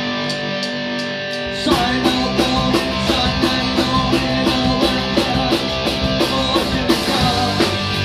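Live punk rock band playing: electric guitar chords ring out over light cymbal taps, then about two seconds in the full band with drum kit and bass guitar crashes in with a steady driving beat.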